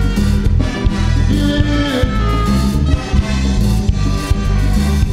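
Live calypso band playing the instrumental introduction: horns and saxophones over a steady bass and conga beat.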